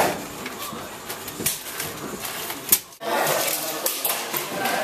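Scattered clicks and knocks of hand work. After a sudden break about three seconds in, a murmur of indistinct voices in a large room.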